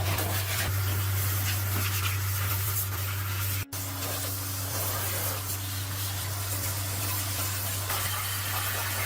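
Steady high-pressure spray hissing over a constant low motor hum, with a split-second break about a third of the way through.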